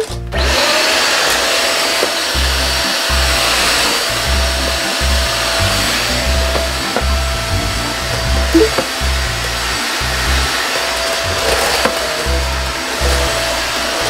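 Deerma DX700 corded stick vacuum switching on right at the start and running steadily, a loud rush of air with a steady motor whine. Background music with a steady beat plays underneath.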